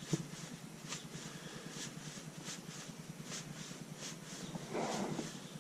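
Faint, irregular small clicks and scrapes of a set screw being tightened to clamp an aftermarket shift knob onto the shifter, with a brief louder sound a little before the end.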